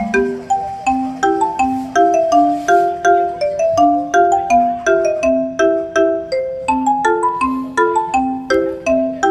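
Background music: a bright, bouncy tune of quickly decaying struck notes on a mallet instrument like a marimba, several notes a second.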